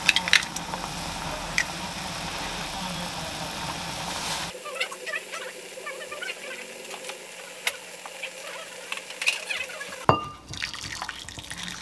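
Shin Ramyun noodles boiling in a saucepan on a gas stove: a steady bubbling hiss, with a few sharp clicks near the start from chopsticks stirring the noodles against the pot. About four and a half seconds in, the sound cuts to quieter bubbling with scattered small pops.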